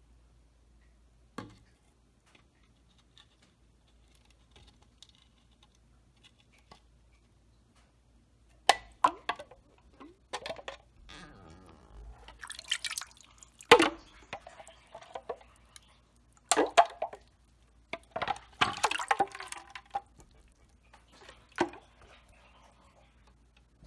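Glitter Christmas ornament handled in a wet porcelain urinal bowl: a handful of sharp knocks and clacks against the porcelain, mostly in the second half, with dripping water and handling noise between. The first several seconds are nearly quiet apart from one knock.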